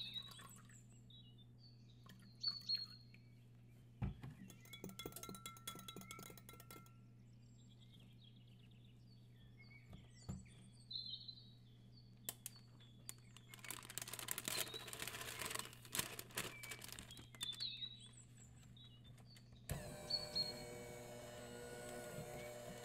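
Faint birdsong from a background nature recording, short chirps and calls, with light clinks of a metal spoon against a glass measuring cup. About twenty seconds in, an electric hand mixer switches on and runs steadily, beating flour into cake batter in a glass bowl.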